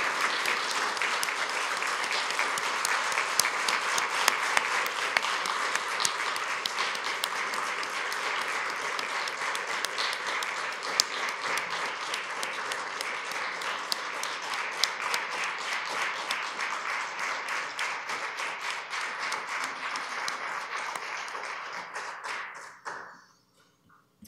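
Sustained applause from a room full of people clapping, which fades and stops about a second before the end.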